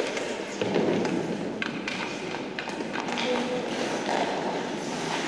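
Ice hockey play: skate blades scraping the ice and sticks clicking against the puck and ice, sharp clicks scattered through a steady scraping hiss. A few faint shouts.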